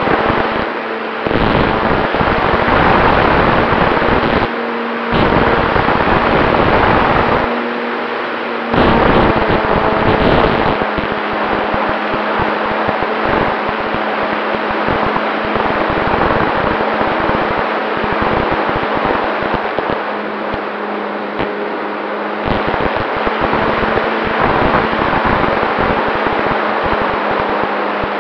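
Radio-controlled model Cessna 188 in flight, heard from its onboard camera: a steady motor drone under loud, crackling wind buffeting on the microphone, swelling and easing in stretches of a few seconds.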